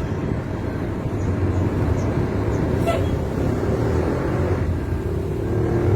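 Road traffic: a vehicle engine drone with tyre and road noise, steady throughout.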